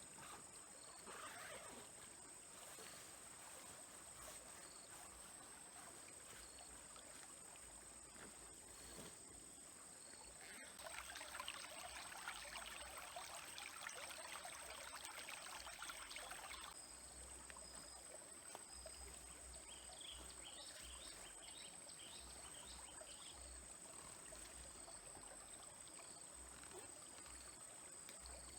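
Faint trickle of a small stream, with a steady high insect drone over it. A louder rushing hiss swells for about six seconds midway, and a quick run of high chirps follows.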